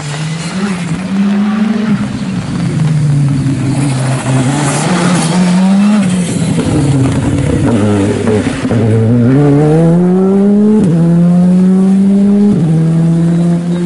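Rally car's turbocharged engine passing close by: the revs rise and fall as it comes in, fall low as it brakes for the corner, then climb hard as it accelerates away, with two sudden drops in pitch at upshifts near the end. Tyres hiss on the wet road as it goes past.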